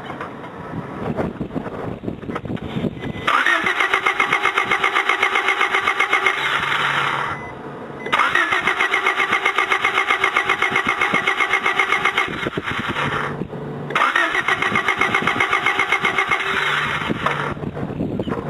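Honda Del Sol's four-cylinder engine being cranked by the starter three times, each try a few seconds of rapid, even pulsing that stops without the engine catching. It is a no-start from weak, intermittent spark, which the owner traced to a bad ignition coil.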